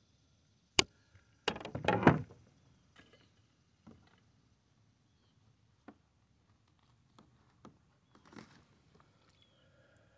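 A sharp click, then a second-long flurry of knocks and thumps as a bass, wrapped in weeds, is landed and thrashes against the kayak. Scattered light knocks and clicks follow as it is handled.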